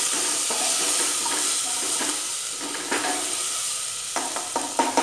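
Whole spices, grated ginger, garlic paste and crushed black pepper sizzling in hot oil in a pressure cooker, stirred with a wooden spatula. A few louder scrapes and knocks of the spatula against the pot come near the end.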